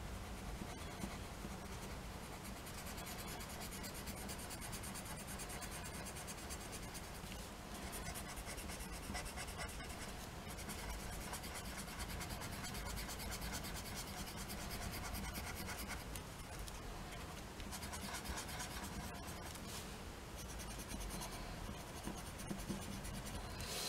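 Grey colouring pencil scratching across card in rapid back-and-forth shading strokes.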